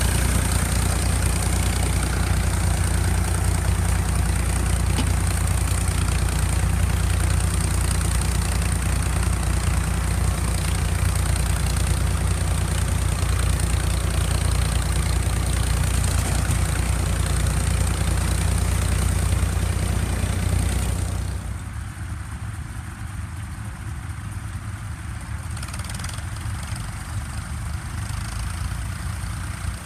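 Vintage tractor engine running steadily while pulling a plough. About 21 seconds in, the close engine sound drops away suddenly, leaving fainter tractor engines in the distance.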